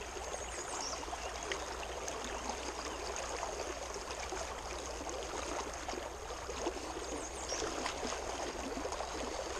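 Creek water flowing, a steady rush and trickle of the stream.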